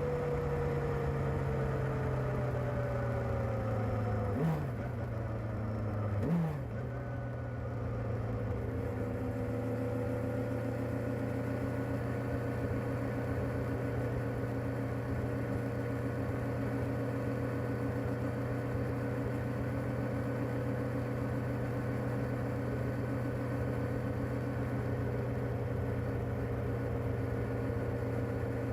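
Kawasaki ZR-7S air-cooled inline-four running through its stock exhaust. The engine speed sags slowly, two quick throttle blips come at about four and six seconds in, then it settles to a steady, even note.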